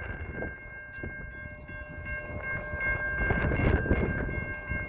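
Railway crossing warning bell ringing at a steady beat, over a low rumble that grows louder about three seconds in.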